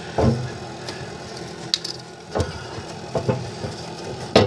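Scattered metal knocks and clicks of hand tools and parts against a snowblower's auger housing, the sharpest knock near the end, over a steady low hum.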